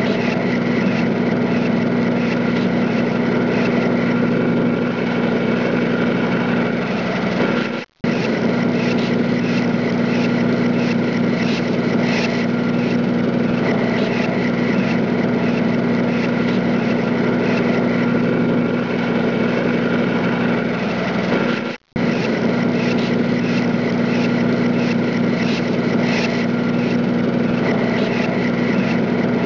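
A motor engine running steadily at a constant speed, dropping out abruptly for a split second twice, about eight and about twenty-two seconds in.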